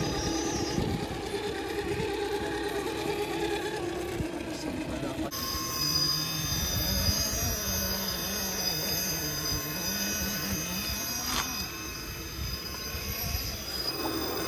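Electric motors and geared drivetrains of Traxxas TRX-4 scale RC crawlers whining as they creep over rock, the pitch wandering up and down with the throttle. A higher steady whine takes over about five seconds in, and there is a single sharp click near the end.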